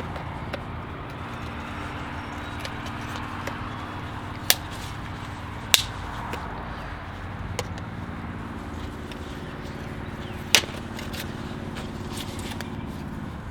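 Sharp plastic clicks and snaps, about four of them, from the Honda Civic's door panel and trim being pressed back into place, over a steady low hum.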